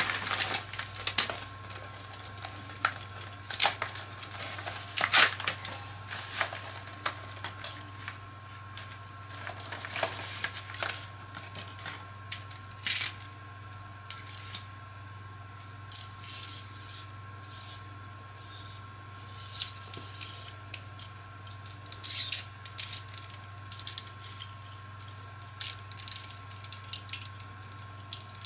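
A plastic mailer crinkles as it is opened. Scattered small metallic clicks and clinks follow as an aluminium pen-style fishing rod and a mini spinning reel are handled and fitted together, a few of them sharper knocks.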